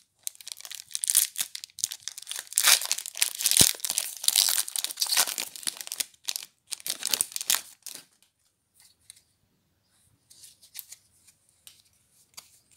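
A foil Magic: The Gathering booster pack wrapper being torn open and crinkled, a run of loud ripping and rustling for about the first eight seconds. After that come only faint, scattered rustles as the cards from the pack are handled.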